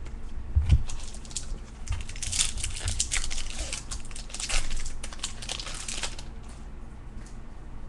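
Crinkling and tearing of a trading-card pack wrapper being opened by hand, dense for about six seconds, then dying down to soft rustling.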